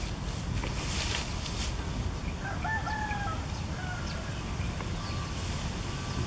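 A rooster crows once, about two and a half seconds in, over a steady low rumble. A brief rustle comes about a second in.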